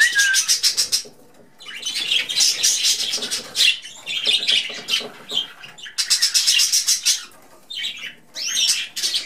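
Budgerigars chattering and warbling: runs of fast ticking chatter mixed with short chirps, and a rising-then-falling whistle near the end.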